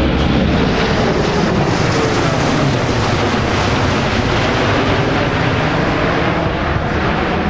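Four turbofan engines of a USAF C-17 Globemaster III, a loud, steady jet noise as the big transport banks low overhead.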